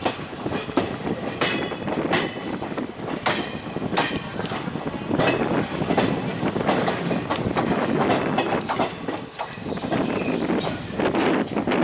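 Passenger train wheels clattering over rail joints and points, heard from on board, with a dense rumble and a string of irregular clacks. Near the end a short high-pitched wheel squeal rises above the clatter.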